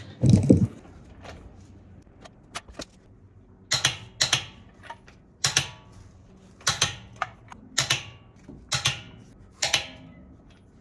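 Torque wrench set to 86 clicking sharply as lug nuts reach torque, about seven clicks in close pairs a second or so apart, after a loud low knock at the start.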